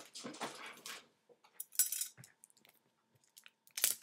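Product packaging being opened and handled by hand: rustling in the first second, then a sharp crackle about two seconds in and another near the end, with small clicks between.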